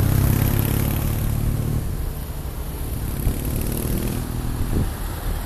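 Vintage military jeep's four-cylinder engine passing close by, loud for the first two seconds and then fading, as a second jeep's engine approaches.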